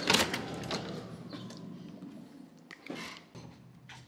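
Electronic keycard lock on a metal hotel room door clicking open, then the latch and handle working as the door is pushed open, with a few lighter knocks near the end.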